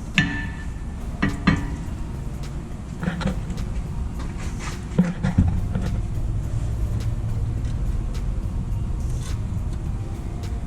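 Metal clanks from tools and brake parts being handled, a few sharp ringing knocks in the first half, over a steady low rumble.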